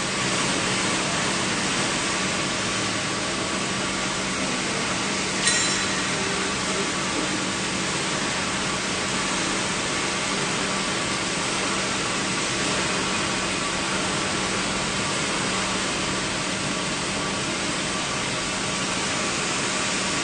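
OUYIGANG 1250-type stainless steel sheet 8K mirror-finish polishing machine running: an even, steady hiss with a low steady hum under it, and one brief sharp click about five and a half seconds in.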